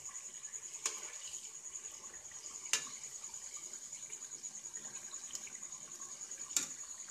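Chicken pieces shallow-frying in hot oil in a kadai: a steady fizzing sizzle with a thin high tone underneath, broken by three sharp clicks as the pieces are stirred with a metal slotted spoon.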